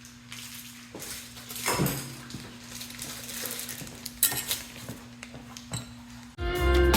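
Light metallic clinks and rustling as tools and metal parts are handled, over a faint steady hum. Electric guitar music cuts in abruptly near the end.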